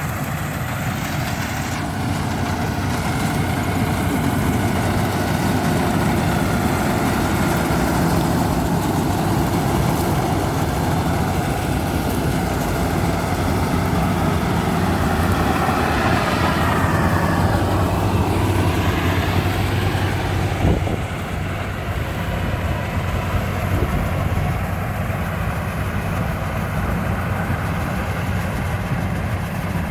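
Bimo combine harvester's engine running steadily, with a falling whine a little past the middle and a single knock about two-thirds of the way through, after which it runs slightly quieter.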